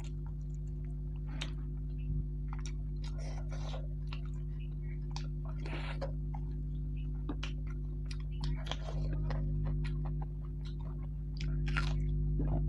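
Close-miked chewing with wet lip-smacking and finger-sucking as goat-foot meat is eaten by hand. The sound comes as many short, scattered smacks and clicks over a steady low hum.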